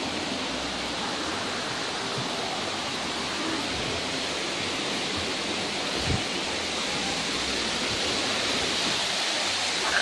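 Steady rush of river water over rocks, a continuous hiss that grows slightly louder near the end, with a couple of faint knocks about six seconds in.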